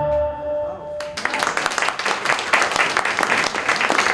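The final held note and chord of a sung song die away. About a second in, the audience breaks into steady applause.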